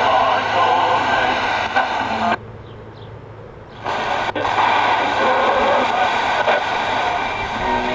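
Rhapsody black-and-white portable TV's speaker hissing with static as the VHF tuning dial is turned. About two and a half seconds in it drops abruptly to a quiet hush for a second and a half, as the tuner lands on a signal, then the static comes back.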